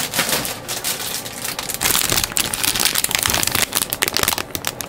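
Thin clear plastic bag crinkling and rustling as a bagged plastic model kit runner is pulled out and handled, with a dense crackle that is busiest about two seconds in.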